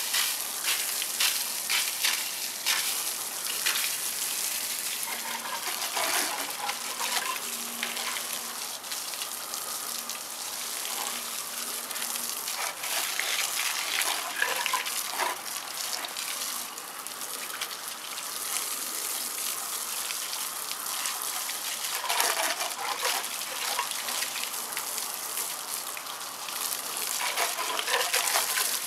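Stream of water splashing onto a truck's steel wheel and tyre, rinsing off degreaser: a steady gushing spray that cuts off suddenly at the end.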